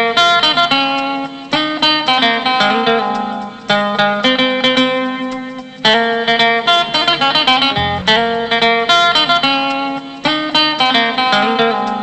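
Background music: plucked-string instrumental with repeated picked notes in short phrases.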